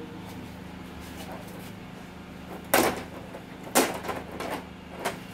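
Two sharp knocks about a second apart near the middle, then a few lighter taps, over a steady low hum: parts and tools being handled on a workbench.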